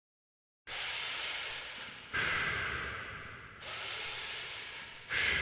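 Four bursts of hissing noise, about a second and a half apart, each starting sharply and fading away.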